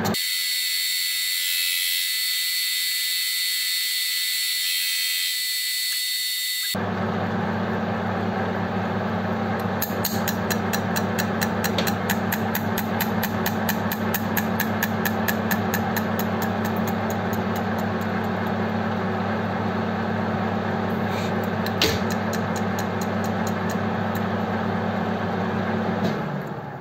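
Metal lathe running with a cutting tool facing a spinning aluminium fixture that holds a carburettor top. A fast, even ticking rides on the steady machine hum as the cut stops and starts. The lathe is switched off and runs down near the end; the low hum is missing for the first several seconds, leaving only a high hiss.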